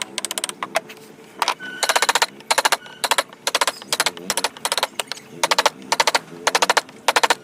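Carving chisel being struck into a wooden panel in quick bursts of light taps, about a dozen taps a second, each burst lasting under half a second with short pauses between.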